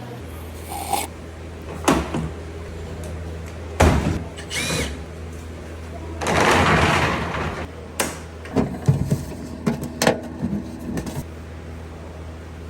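Dent-repair tools working on a truck's metal body panel: scattered knocks, clicks and taps, one with a brief squeak, and a short hiss of about a second and a half in the middle, over a steady low hum.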